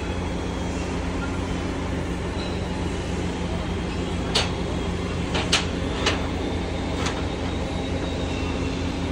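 Mobile crane's diesel engine running steadily with a low hum. Five sharp knocks come between about four and seven seconds in.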